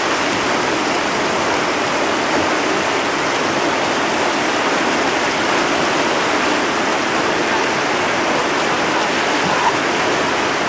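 River rapids rushing steadily: a constant, loud wash of fast whitewater.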